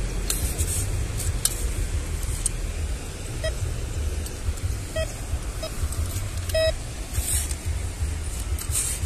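TD-4030 metal detector giving four short, high beeps as its coil passes over the dug hole, signalling a metal target in the sand. The last beep is a little longer. Between and around them comes the scrape and hiss of a small shovel digging beach sand, over a steady low rumble.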